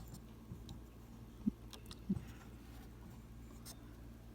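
A steady low electrical hum with two soft knocks, about half a second apart, a second and a half in, and a few faint clicks.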